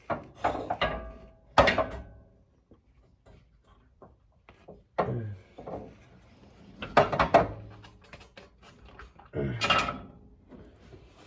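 A series of sharp knocks and clunks with handling noise between them as a rear lowering coil spring and its seat are worked into place. The loudest knocks come about a second and a half in and around seven seconds in.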